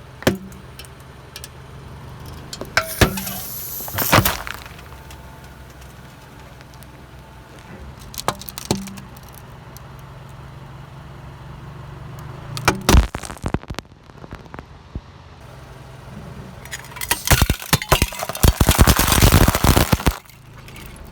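A car crushing brittle objects under its tyres: several separate sharp cracks, then a dense run of crackling and breaking for about three seconds near the end. A steady low engine hum runs underneath.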